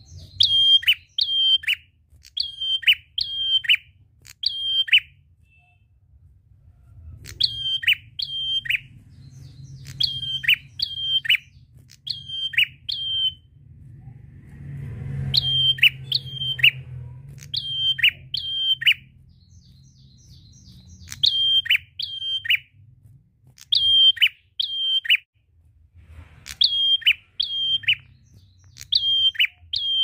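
Caged tailorbird singing: loud, sharp downward-slurred notes, mostly in pairs or threes, repeated with gaps of a second or two between groups.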